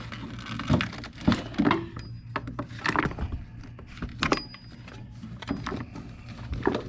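Irregular clicks, knocks and rubbing as a new serpentine belt is worked by hand around the pulleys of a GM 3800 V6, over a steady low hum.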